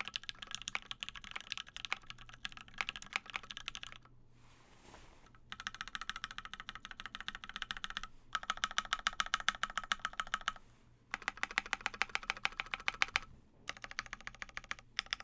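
Mechanical keyboard typed on quickly in bursts of rapid clacks, with a short pause about four seconds in and brief gaps later. The board is a MakerKeyboards Scarlet with lubed Alpaca linear switches on a POM plate and ABS keycaps.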